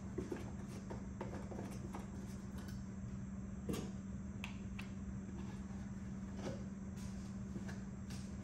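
Faint handling of a cardboard bag-in-box of peanut oil as its spout is worked open: a few light clicks and knocks, the sharpest about three and a half seconds in, over a steady low hum.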